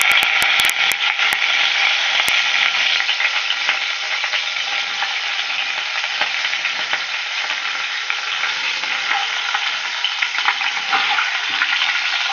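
Hot cooking oil sizzling under a whole raw chicken frying in a pot, a steady dense crackle that is loudest in the first few seconds and eases slightly after.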